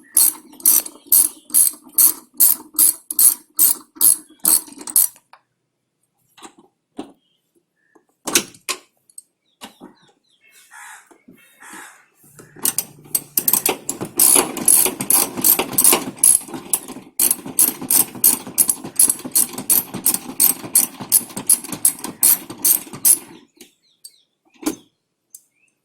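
Hand ratchet wrench clicking at about three clicks a second while undoing fasteners, stopping after about five seconds. After a few scattered taps of handling, the clicking starts again about twelve seconds in and runs for about eleven seconds.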